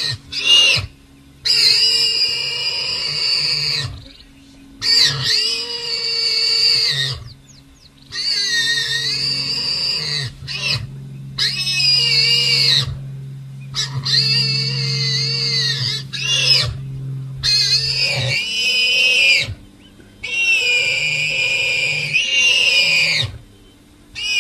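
Warthog squealing: a series of about ten long, wavering, high-pitched squeals, each one to three seconds, with short breaks between them.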